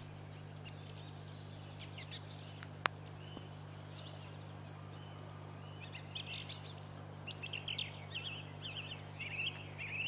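Song thrush singing a run of varied whistled and chattering phrases, with short notes repeated in quick clusters. A single brief click sounds about three seconds in.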